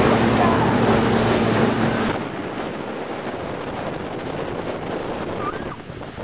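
Speedboat underway at speed: a steady engine drone with rushing water and wind buffeting the microphone. The engine note is loudest for about the first two seconds, then drops away, leaving mostly wind and water noise.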